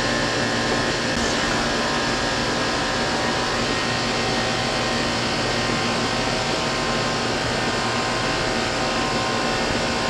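Carrier Infinity Series air conditioner's outdoor condensing unit running steadily, its compressor and condenser fan making an even whirring noise with a few steady humming tones.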